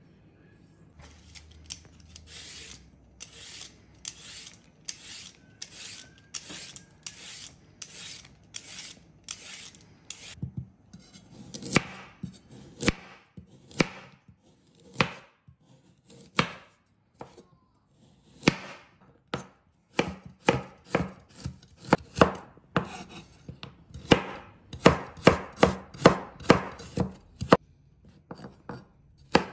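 Chef's knife chopping on a bamboo cutting board: first steady strokes through ginger, about two a second, then a carrot sliced into thin strips, each cut a sharp knock of the blade on the board, quickening near the end.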